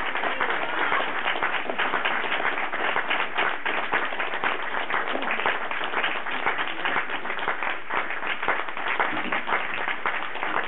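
An audience applauding, with many hands clapping steadily, easing off slightly toward the end.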